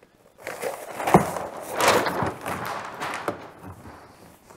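A kayak sail rig being raised: the sail cloth rustles and the rig rattles, with a sharp knock about a second in and another near three seconds in.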